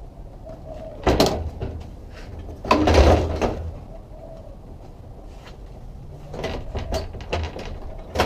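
Large plastic back cover of a Sony Trinitron CRT TV being lowered and fitted over the tube and base: a sharp knock about a second in, a longer scraping clatter around three seconds, then lighter plastic knocks and rattles near the end.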